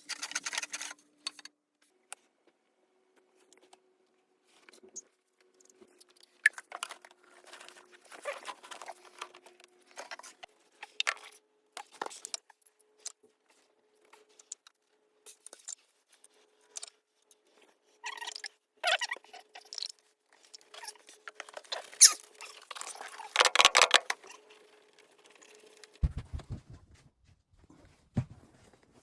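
Sporadic clicks, taps and short scraping noises of hand work with tools and parts, irregular and unrhythmic, with a few low thuds near the end.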